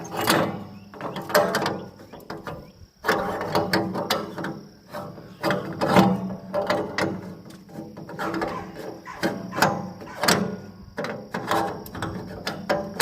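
Rapid, irregular mechanical clicking and clattering, broken by a short pause about three seconds in.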